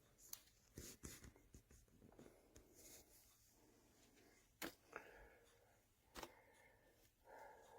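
Faint room tone with scattered small clicks and taps, the loudest about two-thirds of the way in.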